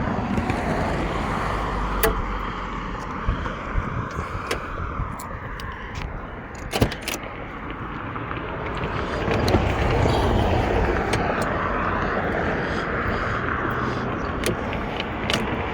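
1964 Chevrolet Chevelle under way with the top down: steady engine and road noise, getting louder about nine to ten seconds in, with scattered small clicks and rattles.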